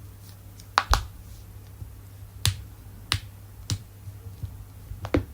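Joints being cracked, a series of about half a dozen sharp pops at uneven intervals, the loudest pair just under a second in. The pops come from gas bubbles released in the joints' synovial fluid.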